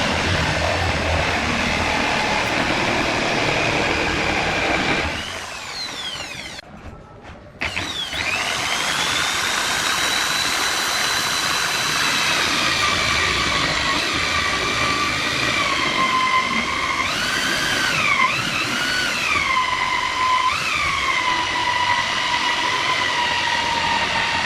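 Small electric power-tool motor running with a steady high whine; it is switched off and winds down, then is started again and spins back up. Near the end, its pitch dips briefly three times, as if it is slowed under load.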